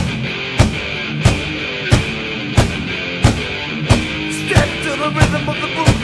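Rock music with guitar over a steady drum beat, a drum hit about every two-thirds of a second.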